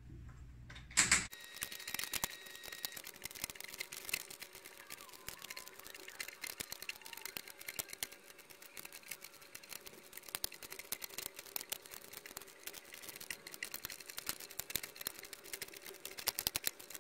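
Heavy-duty staple remover prying staples out of a poker table's plywood edge through the old felt: a dense, irregular run of small metallic clicks and snaps, after a short loud clatter about a second in.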